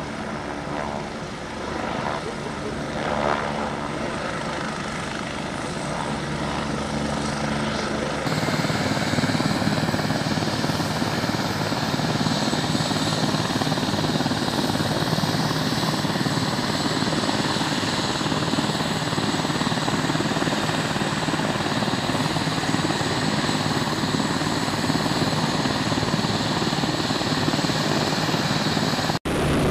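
UH-72 Lakota helicopter turbines and rotor running on the ground, a steady engine whine with rotor beat. About eight seconds in, the sound switches abruptly to a louder, even rushing turbine noise with a thin high whine.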